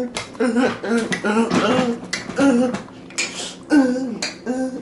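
Speech only: a man talking.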